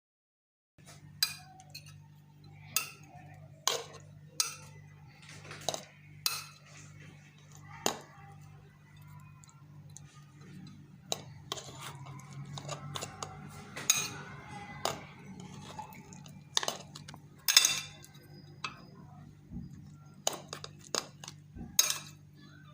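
Kitchenware being handled: a couple of dozen sharp clinks and knocks at irregular intervals, the loudest near the middle of the second half, over a steady low hum.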